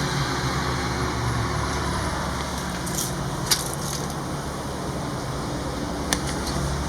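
Boiler running with a steady low mechanical hum, with a few faint clicks about halfway through and again near the end.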